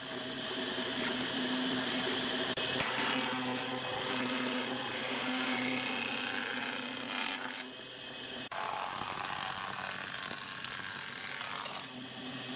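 Combination jointer-planer running steadily with its motor humming while its cutterhead planes a wooden board fed across it. There is a brief dip in the cutting noise about eight seconds in.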